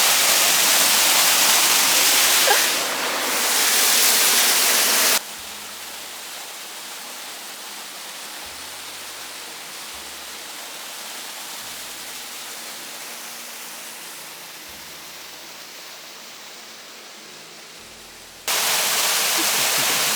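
Waterfall rushing: a steady, loud hiss of falling water that drops abruptly to a quieter, duller rush about five seconds in, then jumps back to full loudness near the end.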